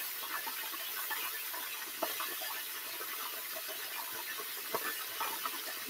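Hot oil sizzling steadily around a whole fish frying in a skillet, with many small crackles and pops.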